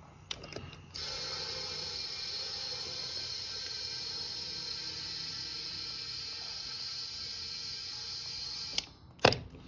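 Compressed air hissing steadily through an air chuck held on the valve stem of a flat lawn tractor tire, inflating it. The hiss starts about a second in and cuts off shortly before the end, followed by a couple of sharp clicks.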